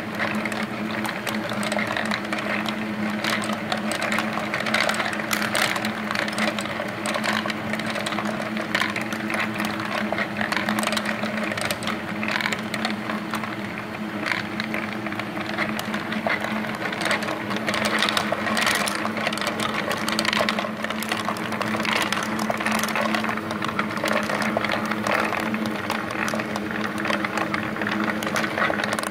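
Laser-cut wooden marble machines running on an electric motor: a steady motor-and-gear hum under a constant clatter of steel ball bearings rolling and clicking along wooden tracks, lifts and drops.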